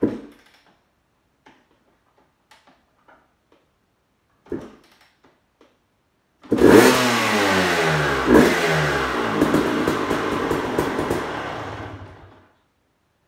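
A 1996 Suzuki RM250's two-stroke single-cylinder engine fires up after a couple of quiet thumps, runs with the throttle blipped up and down for about six seconds, then dies away as it is shut off. It runs with the faulty kill switch that stopped it from starting disconnected.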